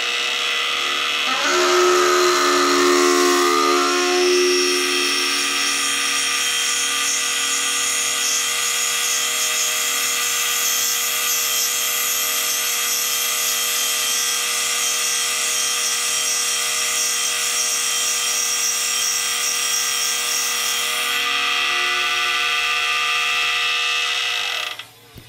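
Vevor 7x12 mini lathe running under load as a twist drill in the tailstock chuck bores into the spinning workpiece: a steady motor and gear whine with a hissing cutting noise. The sound shifts in pitch in the first few seconds, then holds steady and cuts off near the end.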